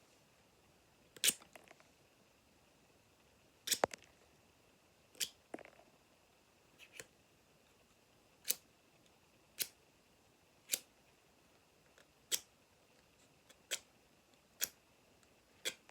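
Scissors snipping shut, about a dozen sharp snips spaced roughly a second apart.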